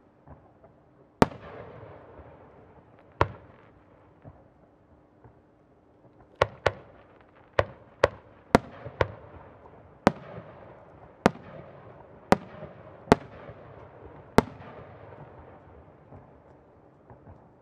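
Aerial firework shells bursting: about a dozen sharp bangs at uneven intervals, bunched most tightly a little past the middle, each followed by a rolling echo. Faint crackling near the end.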